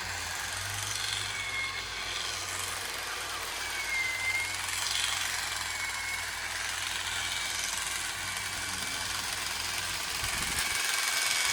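Ego battery-powered pole hedge trimmer running, its blades chattering as they cut a tall hedge, with a motor whine that dips briefly in pitch a few times.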